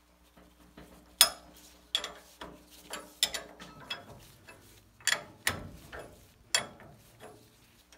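Ratchet wrench clicking in irregular short strokes while tightening the ball joint nuts on a front suspension, with a few sharp metal clinks, the loudest about a second in.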